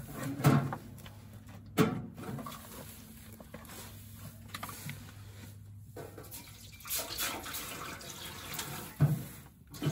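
Water poured from a plastic jug into a stainless steel water tank mounted on a wood stove, splashing and filling from about seven seconds in. A sharp knock about two seconds in.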